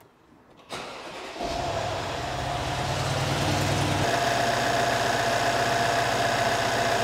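Mercedes M278 4.7-litre twin-turbo V8 started by push button: a short crank about a second in, then it catches and idles steadily, with a steady whine standing out over the idle from about four seconds in.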